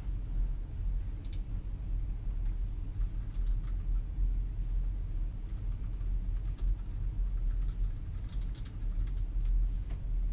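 Quiet office room tone with a steady low hum, under scattered bursts of computer keyboard typing and mouse clicks.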